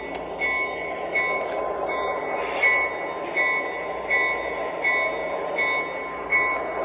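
O gauge Santa Fe RS model diesel locomotive running along its track, a steady rumble of wheels and motor. Over it an electronic locomotive bell sound rings evenly, about three strokes every two seconds.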